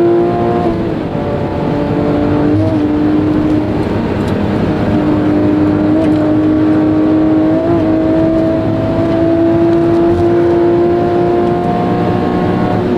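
Porsche 997 GT3 RS's flat-six engine pulling hard at high revs, heard from inside the cabin at speed. Its pitch climbs slowly through long stretches and breaks briefly a few times with a short dip or blip, then drops near the end.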